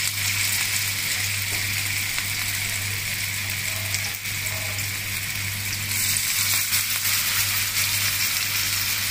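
Masala-coated sea bass steaks sizzling steadily as they shallow-fry in hot oil in a wide pan, with a second steak going into the oil partway through.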